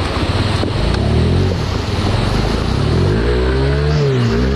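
Motorcycle engine revving up and down as the bike rides through a fast-flowing stream, with the rush of water underneath. The engine note climbs highest about three to four seconds in.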